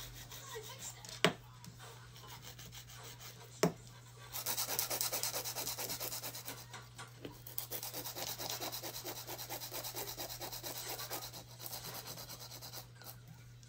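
Hand nail buffer scrubbed quickly back and forth over a gel nail, taking the shine off its surface before polish, after two sharp taps in the first few seconds.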